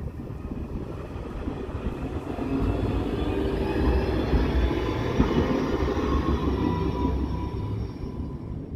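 ASEA/MGB M31 articulated tram passing close by on street track: the rumble of its wheels on the rails builds up, is loudest mid-way, then fades as it moves away, with a faint whine over it.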